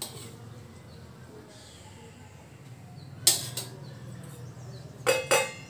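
Kitchen utensils being handled: two pairs of sharp knocks or clinks, about three seconds in and again near the end, over a faint steady low hum.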